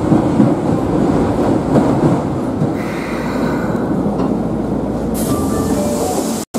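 Osaka Metro Yotsubashi Line subway train running into its terminus, a steady rumble with wheel noise on the rails. The sound cuts off abruptly just before the end.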